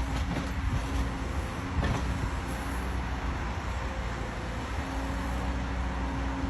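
Excavator's diesel engine running steadily under work, with a single knock about two seconds in.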